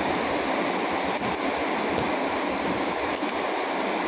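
Steady rain, a continuous even rushing hiss.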